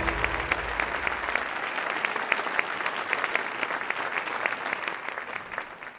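Church congregation applauding, the clapping fading away toward the end.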